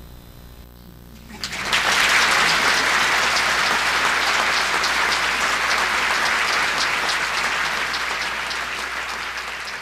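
Theatre audience applauding: it breaks out about a second and a half in after a short quiet, stays strong, and eases off slightly near the end.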